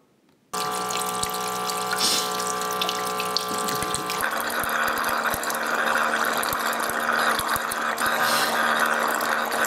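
The refill pump of a LetPot Max hydroponic system runs, jetting water into the basin with a steady hum and a splash. About four seconds in its sound changes to a rougher, noisier run as the refill bowl it draws from empties and the pump keeps running.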